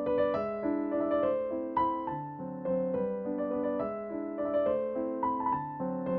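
Background music: a soft piano or electric piano melody over sustained chords, with notes struck every half second or so.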